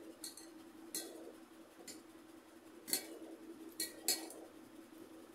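Hand mixing rice in a stainless steel plate: fingers clink and scrape against the metal with about six sharp, ringing clinks at uneven intervals, two close together near the end.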